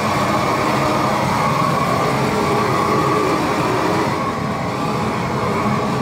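Propane torch burning steadily, its flame played along the underside of wooden roof boards to char them; the sound eases slightly about four seconds in.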